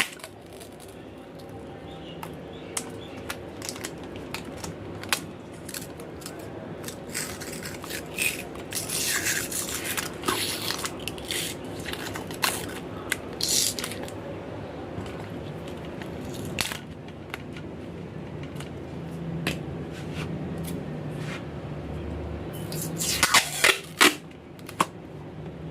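Irregular small clicks, scrapes and rustles of hands working on small parts at a workbench, with a few short hissy rustles, over a steady low hum.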